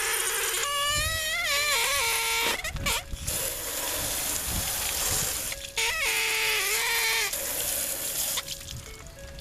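Garden hose spraying water onto a car door and door jamb to rinse off soap, a steady hiss. Twice, a wavering high pitched tone rises and falls over the spray.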